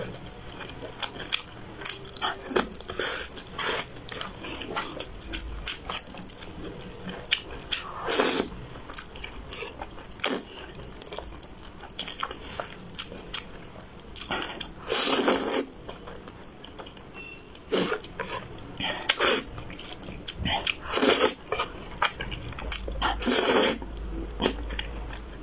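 Close-up eating sounds of a person slurping spicy saucy instant noodles: wet mouth clicks and smacks of chewing throughout, with several longer slurps of about a second each.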